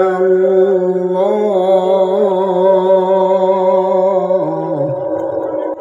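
A male Quran reciter (qari) in the melodic tilawah style, amplified through a PA system, drawing out one long melismatic note with a slight waver. The pitch steps up about a second in and drops near the end.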